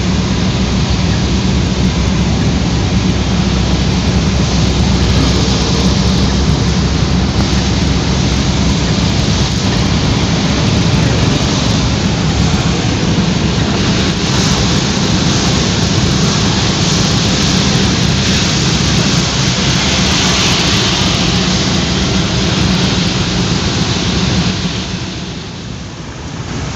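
Steady noise of rain and a car driving on wet road, heard from inside the cabin, with a constant low rumble under it. It dips briefly near the end.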